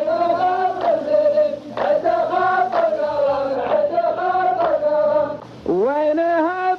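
Men's voices chanting a qalta verse in unison, unaccompanied, drawing out long vowels in a slow melody that rises and falls. The chant breaks off briefly near the end and a new line starts, sliding up from a low note.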